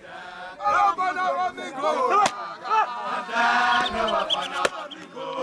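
Spectators shouting and calling out together around a stick fight, with one long held shout about three and a half seconds in. Two sharp clacks, about two seconds in and again near the end, are fighting sticks striking.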